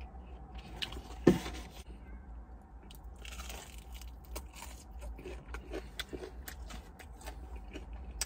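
Close-up crunching and chewing as a fried onion ring is bitten and eaten, many small wet mouth clicks. A single loud thump about a second in.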